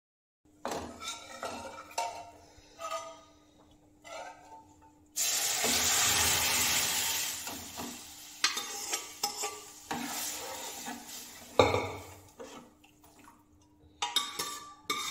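Metal ladle scraping and clinking against a pressure cooker and a steel kadai as cooked dal is poured into a mustard-oil tadka. About five seconds in, a sudden loud sizzle starts as the dal hits the hot tempering and fades over a few seconds. Stirring clinks follow, with a sharp knock near the end.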